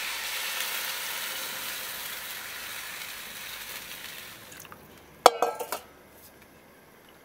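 Chicken wing drumettes and spices sizzling in a wok, the hiss dying away over about four seconds as water is poured in. A short clatter of cookware follows about five seconds in.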